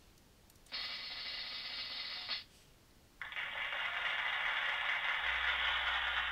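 Sound effect of stones rattling and scraping, in two bursts: a shorter one lasting under two seconds, then a longer, louder one of about three seconds.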